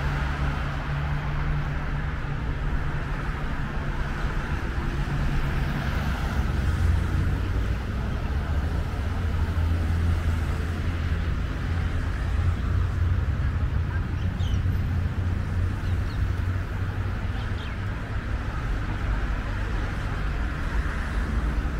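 Steady city road traffic: cars driving past on a multi-lane avenue, a continuous wash of tyre and engine noise with a low hum.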